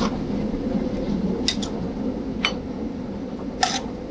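Steady background hum of a restaurant cooking line, with four short metallic clinks of metal tongs against a sauté pan and plate as chicken is served from the pan.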